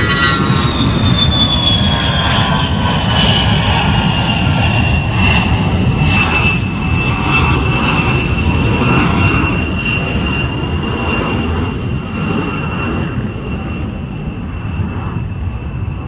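Jet airplane engines: a high whine that falls in pitch over the first several seconds and then holds steady, over a deep rumble. The sound eases off slowly in the second half.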